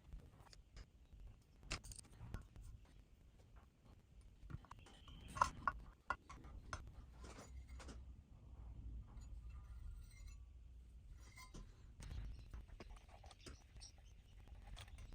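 Scattered light clicks, knocks and clinks of small tools and parts being handled while an amplifier is taken apart, loudest in a short cluster about five seconds in.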